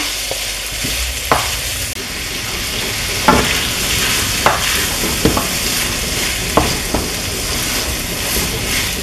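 Shredded chicken with onion and tomato sizzling in a ceramic-lined frying pan while being stirred with a wooden spoon: a steady frying hiss with a few short knocks of the spoon against the pan.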